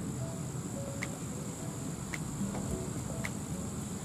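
Outdoor insect chorus: a steady high-pitched buzz, with a short sharp chirp about once a second.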